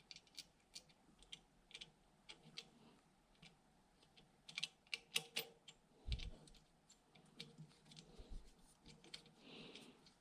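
Faint, irregular small clicks and taps of metal parts being handled as an ambidextrous safety selector lever is fitted onto an AR-15 lower receiver.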